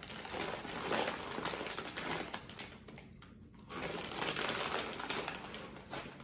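Close-up eating noises, crinkly and crunchy, in two stretches with a short pause about three seconds in.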